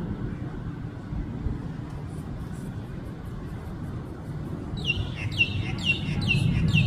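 Distant jet airliner climbing away, a steady low rumble. About two-thirds of the way in, a bird calls over it: five quick falling chirps about half a second apart.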